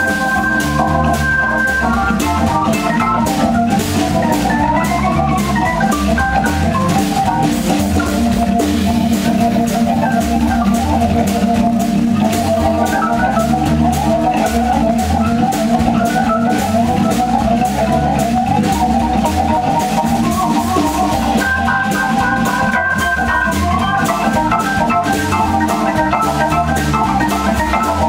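Hammond organ played live through a Leslie speaker: jazz with held chords and melody runs over a low bass line, with a drum kit keeping time.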